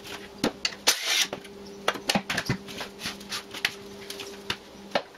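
Irregular light clicks and knocks of tools and metal mower-deck parts being handled, over a faint steady hum.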